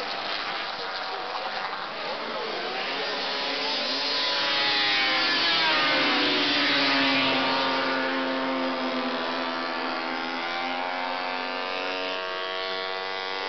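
Several vintage two-stroke racing snowmobiles running at race speed, their engine notes overlapping and shifting in pitch. They grow loudest about halfway through as they pass, then fade slightly.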